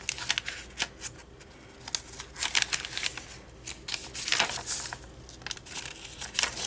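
Paper rustling and crinkling in irregular bursts as the pages of a small handmade paper booklet are unfolded and handled.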